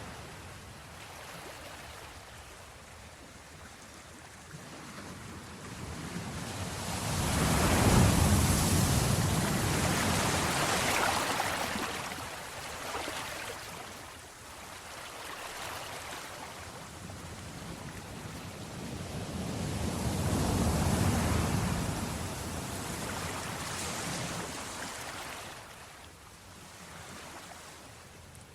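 Black Sea surf: waves washing onto the shore, two big ones breaking about eight and twenty-one seconds in, with wind rumbling on the microphone.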